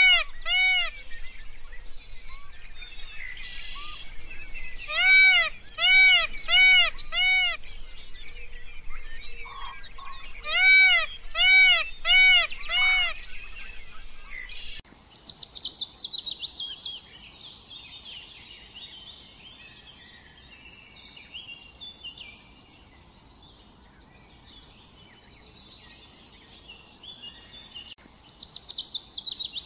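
Indian peafowl (peacock) calling: three series of four or five loud, evenly repeated calls in the first half. Then faint chirping of small birds, with a quick descending run of high notes twice, once just after the calls stop and again near the end.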